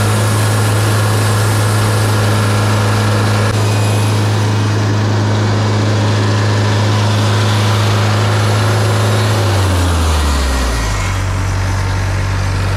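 Wood-Mizer LT50 sawmill running at high revs, its bandsaw cutting into a redwood log, with a steady hiss over the engine; about ten seconds in the engine's pitch drops and settles lower.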